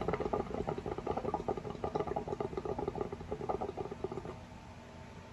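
Hookah water bubbling in a rapid run as smoke is drawn through the hose, stopping about four seconds in.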